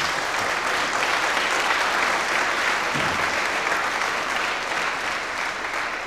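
Audience applauding steadily, easing off near the end.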